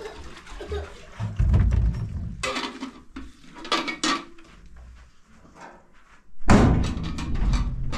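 Household knocks and clatter as a person moves about and handles things at a metal door, with two stretches of deep rumble: one about one and a half seconds in and a louder one near the end.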